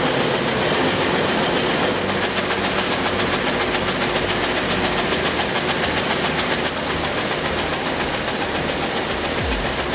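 Machinery running with a fast, steady rhythmic clatter, its character shifting a couple of times.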